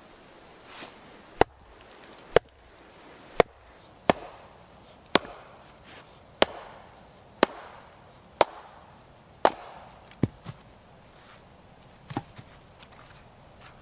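An axe head wedged in a log round being hit about a dozen times with a wooden baton, one sharp knock roughly every second, driving the blade through until the round splits near the end.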